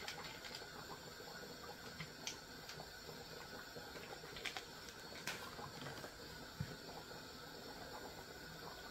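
A pot of soup simmering faintly, with a few soft clicks and taps.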